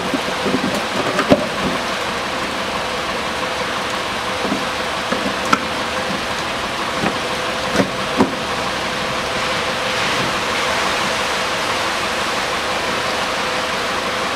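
Steady hiss of the Mitsubishi ASX's 1.8-litre engine left idling to warm up the CVT, with a faint steady hum. Several short knocks come from the plastic wheel-arch liner being pushed into place.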